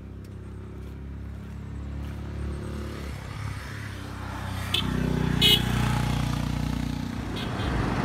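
A motor vehicle's engine approaches along the road, growing louder, and passes, dropping away near the end. Two short high beeps sound about halfway through.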